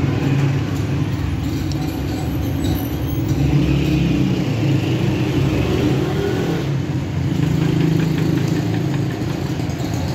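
A steady low engine rumble that swells slightly and eases off again over several seconds.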